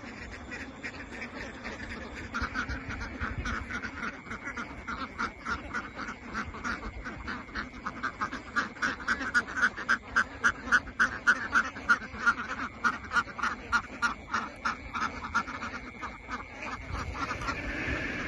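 A large flock of egg-laying ducks quacking in a fast, rhythmic chorus of about three quacks a second. It swells to its loudest in the middle and thins out near the end.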